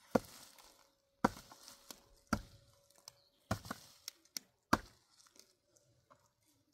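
Repeated sharp chopping strikes, five heavy blows roughly a second apart with a couple of lighter taps in between.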